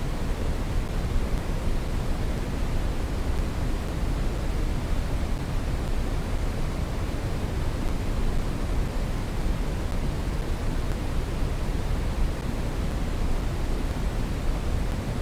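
Steady synthetic brown noise: an even, unchanging rumble-hiss heaviest in the bass and falling off toward the treble.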